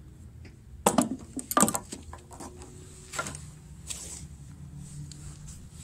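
Sharp clacks and clinks of a fishing magnet with nails stuck to it being handled. The two loudest knocks come about a second in and just before two seconds, with fainter ones later.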